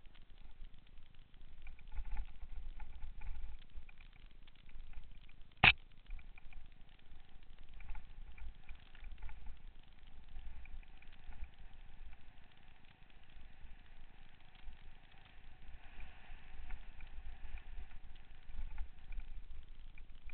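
Mountain bike riding dirt singletrack, heard from a helmet camera: wind rumbling on the microphone, small knocks from the bike over the trail, and one sharp click about six seconds in. A faint steady whine comes in at about eight seconds and fades near the end.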